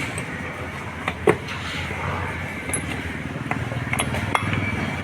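Sharp metallic clinks and taps from tools or steering parts being handled, the loudest about a second in, over a steady low workshop hum.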